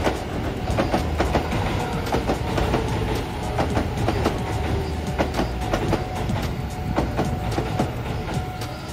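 Keio Line commuter train rolling slowly past over pointwork, its wheels clacking over the rail joints and switches in an irregular run of sharp clicks above a steady low rumble.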